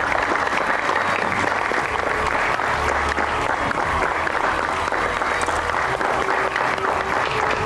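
An audience applauding steadily, many hands clapping.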